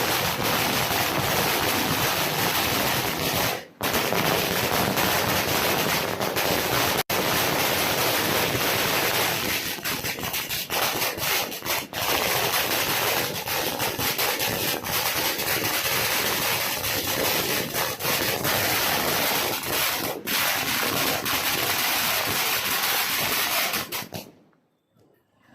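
A 10,000-wala firecracker string bursting nonstop, the pops so rapid that they merge into a steady crackling rush. It cuts off suddenly near the end.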